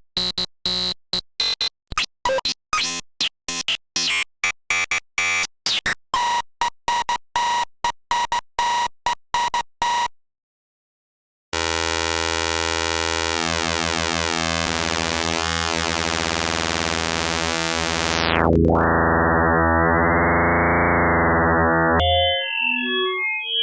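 Electronic sounds from software synthesizer and effect plugins: rapid chopped, stuttering bursts about three a second for some ten seconds, then after a short gap a steady dense synth drone whose top end is filtered sharply down partway through, ending in sparse scattered bleeping notes.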